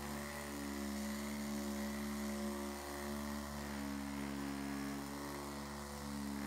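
Handheld electric massage instrument running steadily on the back muscles, a continuous motor hum whose pitch shifts slightly now and then.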